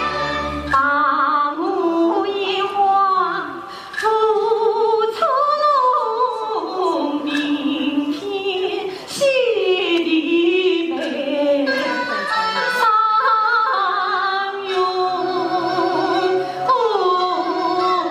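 A female Yue opera (Shaoxing opera) singer sings a sustained aria line with sliding, bending pitches, over a faint instrumental accompaniment.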